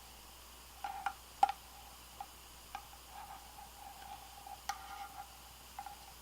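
Light clicks and taps from a folding knife being handled, about seven in all and irregularly spaced, the loudest about one and a half seconds in, with a faint ringing between some of them.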